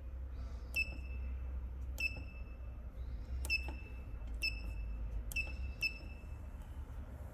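Button-press beeps from the digital control panel of a Jugema A-150 E electric cooking vessel: six short, high beeps at irregular intervals as the keys are pressed, over a steady low hum.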